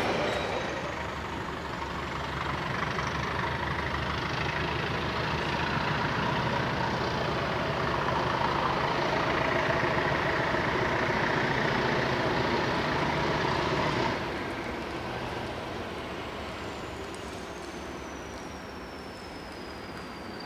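Class 37 and Class 20 diesel locomotives with English Electric engines working under power, a steady drone that builds, then drops suddenly about two-thirds of the way through and fades. Near the end a high whistle slowly falls in pitch.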